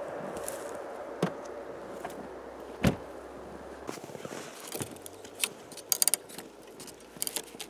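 Footsteps crunching in snow and handling noises, a string of separate sharp knocks and clicks, the loudest about three seconds in and a quick cluster around six seconds. A faint steady hum at the start fades out within the first couple of seconds.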